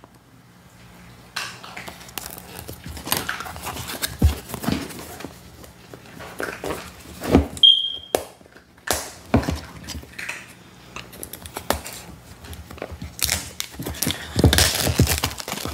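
Handling noise of a product box being unsealed on a wooden table: scattered taps, scrapes and light plastic rustles as the seal is cut with a small razor blade and the box is turned over. About seven and a half seconds in there is a short metallic ping, the blade being set down on the table, and near the end a thicker run of rubbing and knocking as the box is handled.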